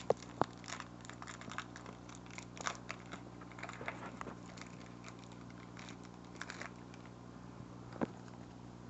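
Foil wrapper of a Pokémon trading card booster pack being handled and opened: faint scattered crinkling and small clicks, with one sharper click about eight seconds in.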